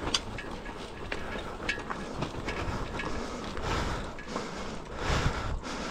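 Bicycle rolling over a rough, rocky dirt track: tyres crunching on gravel and stones, with scattered sharp clicks and rattles from the bike.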